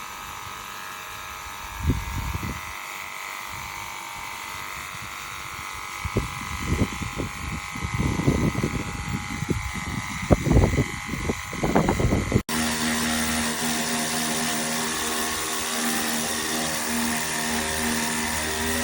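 Small battery-powered pressure washer's electric pump motor running with a steady whine. Irregular low gusts of noise come and go over it. After an abrupt cut near the middle it runs on as a steady, lower-pitched hum.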